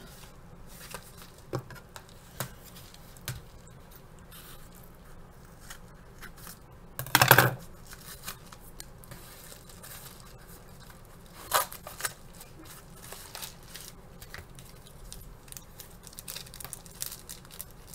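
Yellow padded mailer being opened and handled, rustling and crinkling with small clicks. One loud burst of noise comes near the middle and a shorter sharp one later.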